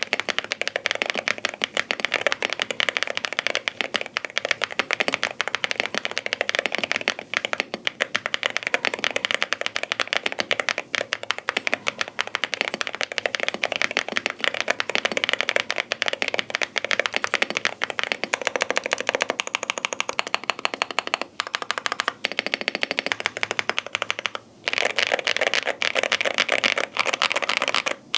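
Fast, continuous typing on an Akko 5098B full-size mechanical keyboard fitted with pre-lubed Akko Piano switches and its stock keycaps. Dense rapid keystrokes break off briefly a few times, and the whole sounds like a proper mechanical keyboard.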